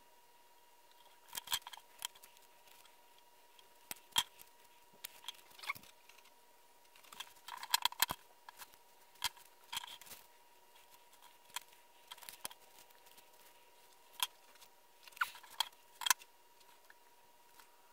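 Small tools and workpieces (knives, a steel belt clip, a metal ruler, a paper template) being handled and set down on a wooden workbench: scattered light clicks and knocks, some in quick clusters, over a faint steady high whine.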